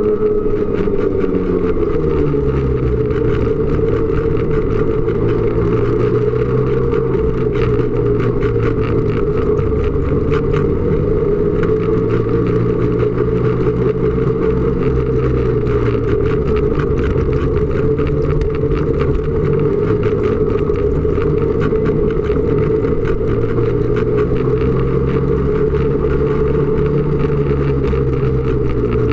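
Snowmobile engine running under way along a trail, its revs dropping in the first couple of seconds and then rising and falling gently, with many small clicks and knocks over it.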